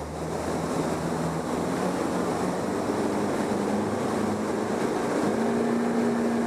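A boat's engine running steadily over the rush of water, its pitch stepping up slightly about five seconds in.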